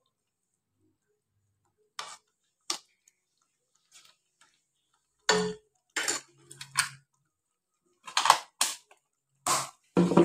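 A kitchen utensil knocking and clinking against a stainless steel frying pan of thick spinach curry: about ten sharp clinks at irregular intervals, sparse at first and closer together and louder in the second half.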